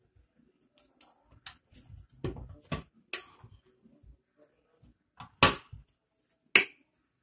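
Sharp plastic-and-metal clacks and knocks from an electric sandwich toaster being handled as the toasted sandwich is taken out onto a plate. The two loudest knocks come about a second apart near the end.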